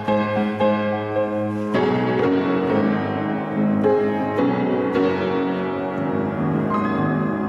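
Music with piano: sustained chords and notes, the texture shifting about two seconds in.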